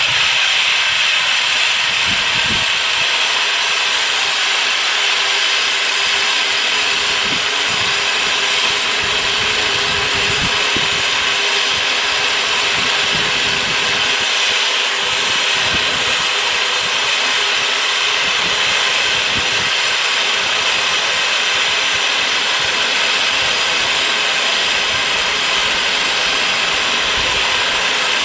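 Live steam model locomotive letting off steam: a loud, steady hiss that starts suddenly and holds without a break.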